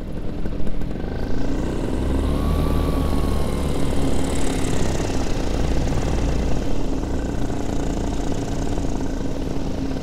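A paramotor's engine and propeller running steadily under power in flight, with wind rushing over the microphone. The engine note rises slightly about two seconds in.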